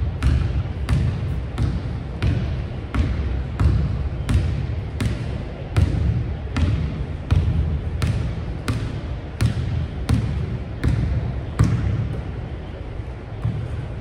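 Basketball dribbled on a hardwood gym floor, a steady run of bounces about three every two seconds, each echoing in the large hall.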